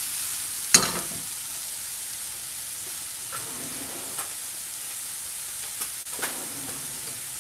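Sliced mushrooms dry-frying in a pan with no oil, a steady sizzle as their water cooks out as steam, with faint squeaks from the pieces. About a second in, the tossed pan is set down on the gas stove's grate with a sharp clank, and a few lighter clicks follow later.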